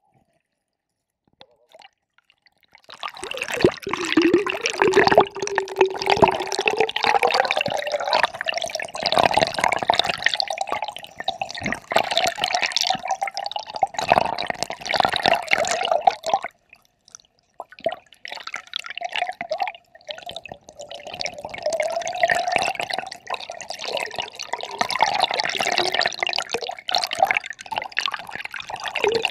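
River water heard through a submerged camera's microphone: a gurgling, crackling rush of current that starts about three seconds in and dips briefly near the middle.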